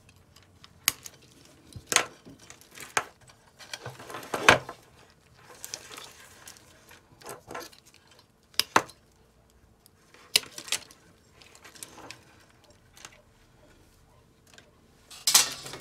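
Irregular handling noise from a bundle of insulated power-supply wires being sorted by hand: rustling, light clinks and a few sharper knocks, the loudest about four and a half seconds in and again near the end.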